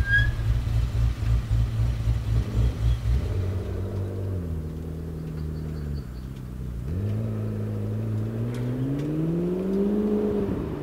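McLaren 12C's twin-turbo V8 through its sport exhaust. It starts with a deep, pulsing low-speed burble, settles into a steady note, and from about seven seconds the revs climb steadily as the car accelerates.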